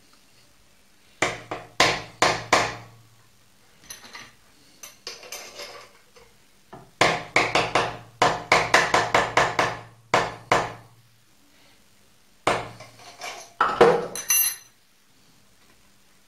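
A soft-faced hammer with a yellow plastic face tapping a round metal workpiece clamped in a milling-machine vise, seating it down in the vise. The taps come in groups: a few sharp strokes, some lighter taps, a quick run of about a dozen, then several more near the end.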